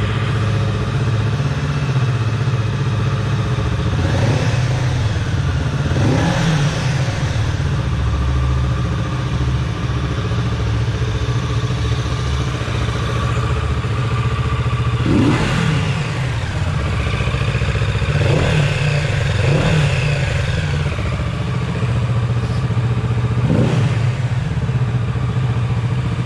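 Kawasaki Z650RS 650 cc parallel-twin engine idling through its stock underbelly 2-into-1 exhaust, revved in short throttle blips about six times, each rising and dropping back to idle.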